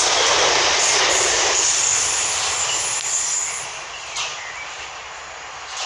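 Southern Class 455 electric multiple unit running through the station at speed: a loud rush of wheels on rail with a faint high whine, dying away about three to four seconds in as the rear of the train goes by.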